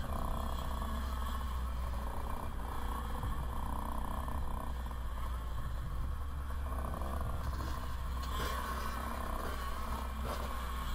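Motocross bike engine running steadily at low revs as the bike rolls slowly along.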